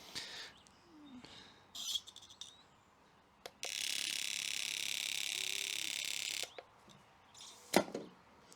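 Rebuilt Merkur XR4Ti fuel injector on an injector test kit, pulsed while spraying carb cleaner. A steady high hiss with a fast flutter starts with a click about three and a half seconds in and lasts about three seconds, then cuts off. The even spray shows the injector is working after its new O-rings.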